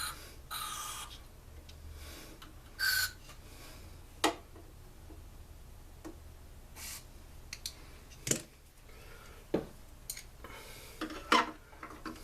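Hand tools working on a small-engine part: short scraping strokes and scattered sharp metal clicks and knocks as a stuck part is worked at.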